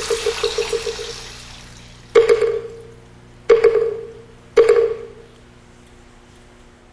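A wavering, pulsing ring with a hiss fades away, then a bell is struck three times, a second or so apart. Each strike rings at the same pitch and dies away, as in Buddhist ritual bell strokes.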